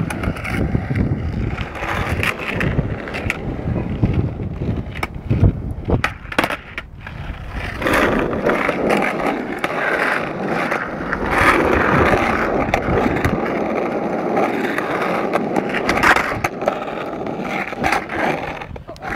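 Skateboard wheels rolling over rough tarmac with scattered clacks of the board hitting the ground. About eight seconds in, the deep rumble gives way to a higher, hissier rolling sound.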